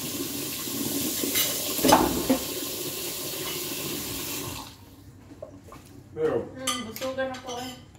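Running water, a steady hiss that cuts off abruptly a little past halfway through.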